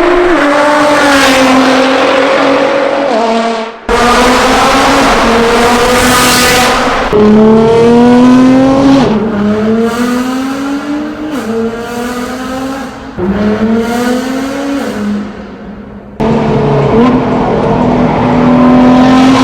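Straight-piped Nissan GT-R R35 twin-turbo V6 with a Fi Exhaust system accelerating hard. Its pitch climbs and then drops sharply at each upshift, over several clips that start and stop abruptly.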